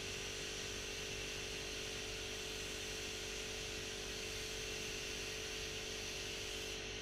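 Steady hiss and hum of compressed-air gel coat spraying equipment running without a break, with a few constant tones in it. The highest part of the hiss drops away near the end.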